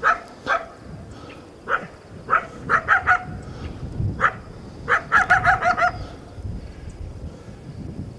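Coyote barking and yipping: sharp single barks spaced half a second to a second apart, then a fast run of about six yips with short falling tails about five seconds in.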